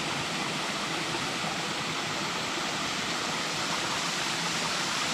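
Small waterfall pouring over a rock ledge into a shallow, rocky stream: a steady, unbroken rush of falling water.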